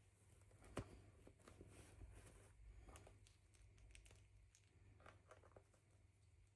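Near silence with faint handling of toy packaging: soft crinkles and scattered small clicks, one sharper click about a second in.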